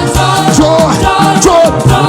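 Live church praise music: a band playing a steady dance beat with voices singing over it.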